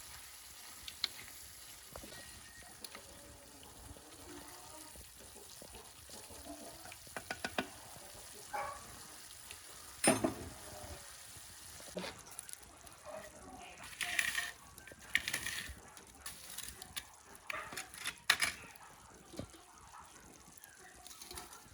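Mhajeb flatbreads sizzling on a hot griddle, with scattered clicks and knocks, the loudest about ten seconds in.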